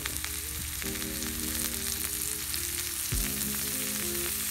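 A venison backstrap searing in olive oil in a very hot cast-iron skillet, with a steady sizzle and a constant crackle of spitting grease. Background music plays underneath.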